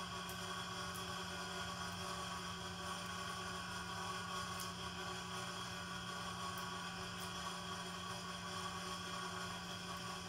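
Steady machine hum with several held tones, unchanging throughout. A few faint soft ticks sound over it as leaves are pinched off blueberry softwood cuttings.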